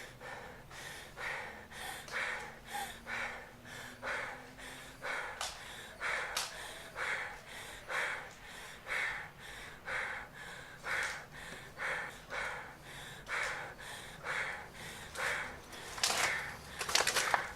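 A person breathing heavily, panting in a steady rhythm of about two breaths a second, with louder, harsher breaths near the end.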